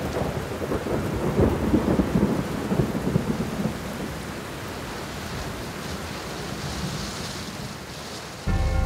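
Steady rain with a rolling rumble of thunder that swells over the first few seconds and then fades into the rain. Sustained musical tones come in just before the end.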